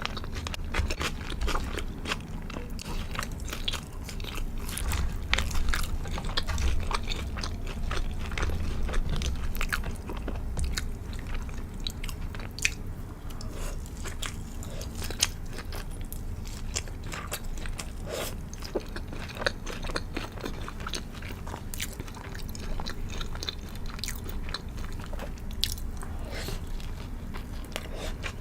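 A person biting and chewing a crispy fried chicken burger, with crunching and many small crackles throughout.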